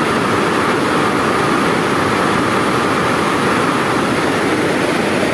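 Steady, loud roar of water pouring over a dam's waterfall.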